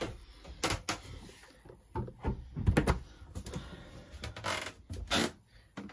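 Scattered light knocks, clicks and rustles from someone moving about a yacht's wood-panelled cabin and handling the camera and fittings, with a sharp click at the start.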